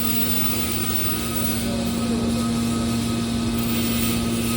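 Aluminium baler running with a steady, even hum.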